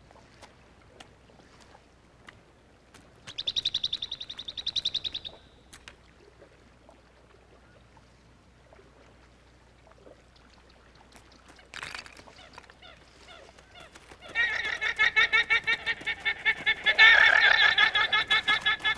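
Guanaco alarm calls: a high, rapidly trilling whinny, first a short burst about three seconds in, then longer, louder calls from about fourteen seconds on. It is the herd's alarm at having spotted the pumas.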